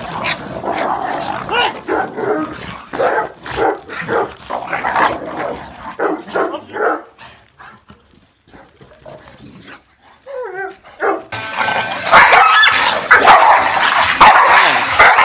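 Dogs fighting, with repeated bursts of snarling and barking. The fight sounds ease off briefly about halfway, with a short wavering cry. Then a new, louder and denser bout of snarling and barking fills the last few seconds.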